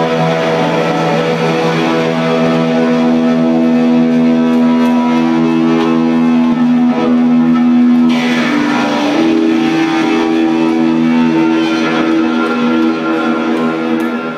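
Live rock band's electric guitars ringing out in loud, held droning notes, with few drum hits; the notes change about eight seconds in.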